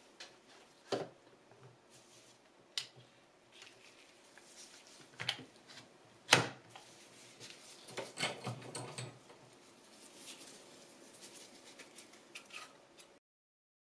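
Scattered clicks and knocks from hands handling a resin-filled knife-handle mold and plastic bar clamps at a bench vise, with a quick run of knocks about eight seconds in. The sound cuts off sharply near the end.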